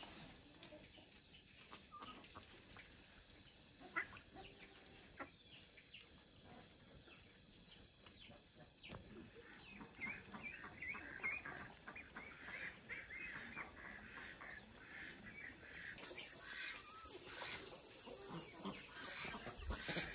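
Countryside ambience: a steady, high insect drone, with a run of short bird chirps in the middle and scattered clicks, a sharp one about four seconds in.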